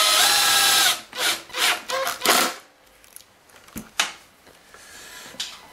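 Makita cordless drill driving screws into a Kirby vacuum's plastic base: the motor whines for about a second, then runs in several shorter bursts as the screw is snugged down. Two sharp clicks follow a little later.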